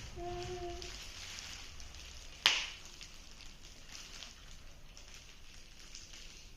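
Faint rustling and tapping from handling a camera and its packaging, with a short low hum in the first second and one sharp click about two and a half seconds in.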